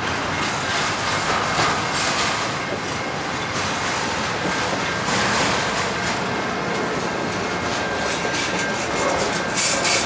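Double-stack intermodal freight train's container well cars rolling past: a steady rumble and clatter of steel wheels over the rails, with a faint steady high tone throughout and a brief sharper clatter near the end.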